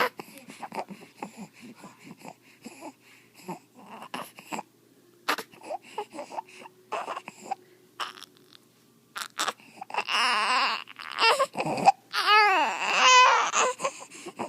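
Infant with stridor breathing noisily in many short, rapid breaths, then breaking into crying about ten seconds in, the second cry a long wail that bends up and down in pitch. The noisy breathing is the sign of a narrowed upper airway.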